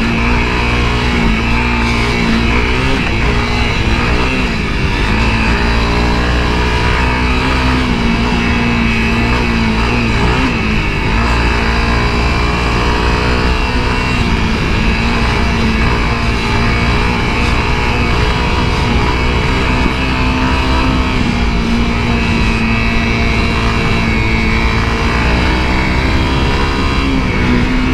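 The single-cylinder four-stroke engine of a 2017 Honda CRF250L dirt bike running steadily under load while riding. The revs dip and rise a few times.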